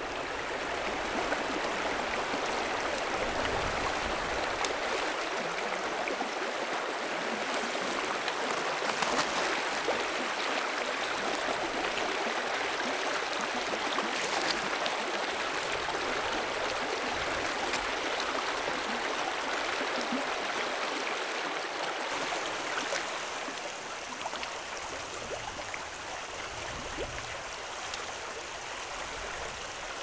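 Small creek flowing over shallow riffles: a steady rush and babble of moving water, dropping a little quieter for the last several seconds.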